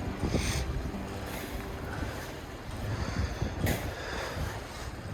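Wind buffeting the microphone with a steady low rumble, and two short scraping strokes, about half a second in and near the end, from a snow shovel clearing snow.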